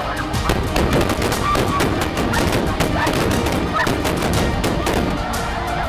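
Rapid volley of shotgun shots fired at snow geese flying overhead, many shots in quick succession.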